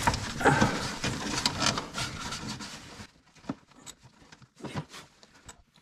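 Hands and a ratchet working at a stuck shock mounting bolt: rubbing with quick, irregular clicks, thinning out after about three seconds to a few scattered clicks.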